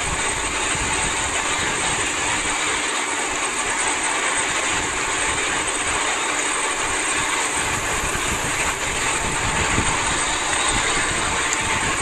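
Rough sea rushing and breaking white along a fishing boat's hull, with wind buffeting the microphone and the low drone of the boat's engine underneath, all steady and loud.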